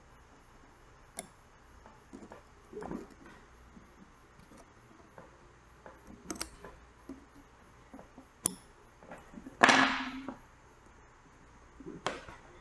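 Small scattered clicks, ticks and rustles of fingers working wires and small plastic and metal parts on a quadcopter's electronics stack, with one louder sound lasting about half a second just under two-thirds of the way through.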